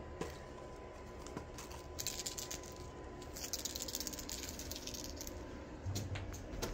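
Faint rattling of a small cat toy in two short spells of quick clicks, then a soft thump near the end as a cat pounces onto the carpeted stair.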